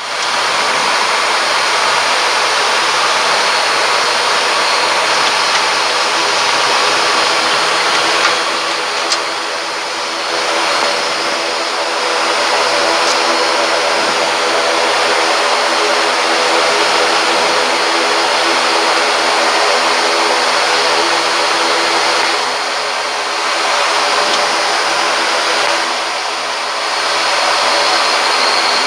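Cockpit noise of an ATR 72-600 taxiing: the steady drone of its twin Pratt & Whitney PW127M turboprop engines and propellers, a hum of several steady tones over a broad rush. The level dips briefly a few times.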